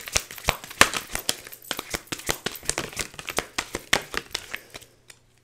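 Tarot cards being shuffled by hand: rapid papery snaps and slaps of the cards, several a second, stopping suddenly near the end.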